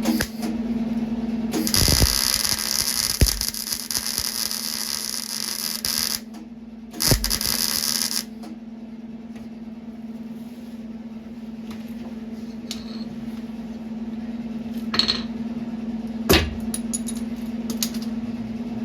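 Steady low hum with two bursts of loud, high hissing, the first lasting about four seconds and the second about a second, then a few sharp knocks near the end.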